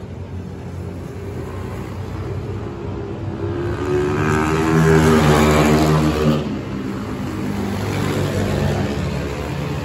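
Dirt-track racing motorcycles running hard as riders lap the oval, swelling loudest as bikes pass close by, about four to six seconds in, then fading.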